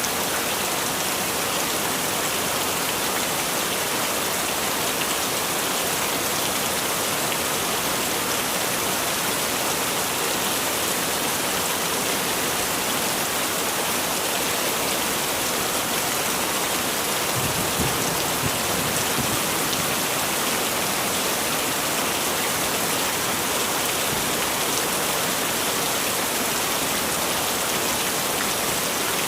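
Heavy rain falling steadily, a dense even hiss. A brief low rumble swells about two-thirds of the way through.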